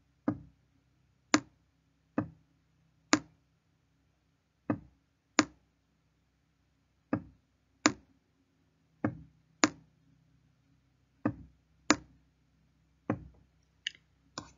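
About fifteen sharp, hard taps at uneven intervals, often in pairs, over a faint low hum.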